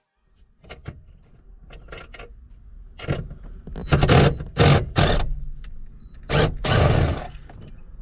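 Wrench work on a steering-column mounting bolt under the dash of a 1979 Buick Regal: a few light metal clicks, then several loud, noisy bursts of scraping from about three seconds in as the bolt is worked out.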